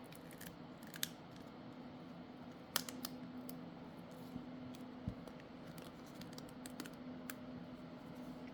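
Faint, scattered clicks and taps of small repair tools and phone parts being handled during a smartphone disassembly, over a steady low hum.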